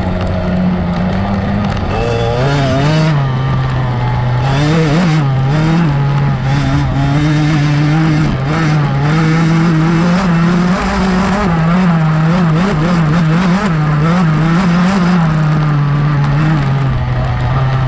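GasGas MC65's 65cc two-stroke engine at race pace, its pitch rising and falling steadily as the throttle is worked on a sandy motocross track.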